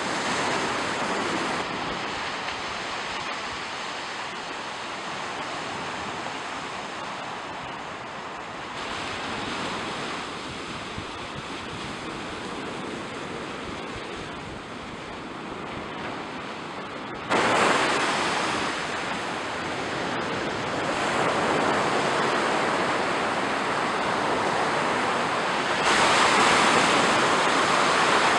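Sea surf washing on the shore, a steady rushing noise with wind on the microphone. Its loudness changes abruptly a few times, most sharply about two thirds of the way in.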